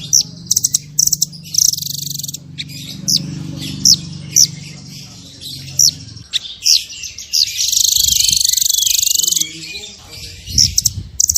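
Small songbirds singing in quick, sharp, high whistled chirps and sweeps, the rapid 'tembakan' notes used in masteran training recordings, with a long buzzy trill about seven and a half seconds in. A low hum runs underneath for the first six seconds.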